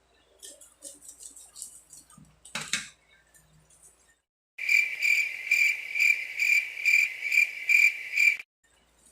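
Faint handling clicks and a knock about two and a half seconds in, then a cricket-chirping sound effect: a high chirp pulsing about three times a second for nearly four seconds, starting and stopping abruptly.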